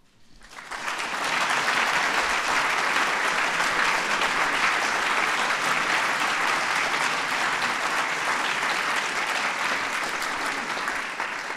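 A large audience applauding: the clapping builds up over the first second, holds steady, then starts to die away near the end.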